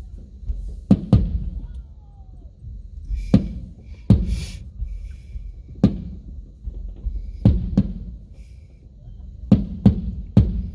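Fireworks shells bursting, heard from inside a closed car as muffled booms over a low rumble: about ten in all, some in quick pairs. One burst about four seconds in is followed by a short crackle.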